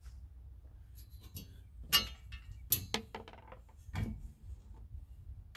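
A few sharp clicks and clinks of metal hardware against the steel tubing of a patio glider frame being assembled by hand, the loudest about two seconds in, with more around three and four seconds.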